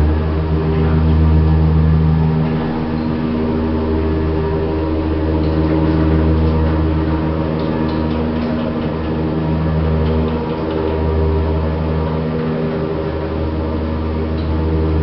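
1960s Jensen passenger lift travelling between floors, its machinery giving a loud, steady hum of several low tones.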